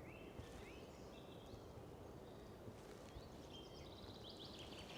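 Faint woodland birdsong: several small songbirds giving short, high chirps and brief rising and falling whistles, scattered through and busier toward the end, over a quiet forest background.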